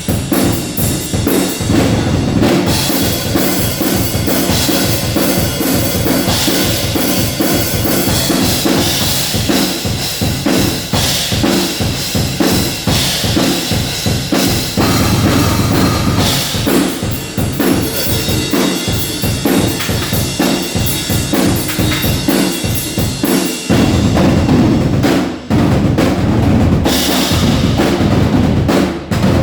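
A drum kit being played fast and loud: kick drum and snare strikes in a dense, driving rhythm with cymbals washing over the top, and a few brief breaks near the end.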